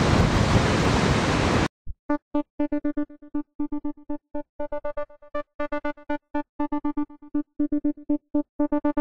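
Strong coastal wind buffeting the microphone, with surf, for about the first second and a half, cutting off abruptly. Then background keyboard music of short, quickly repeated notes on one pitch.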